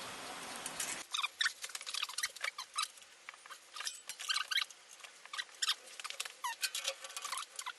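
An irregular run of light clicks, taps and scrapes from parts and tools being handled by hand during bandsaw set-up. A steady hiss underneath stops about a second in.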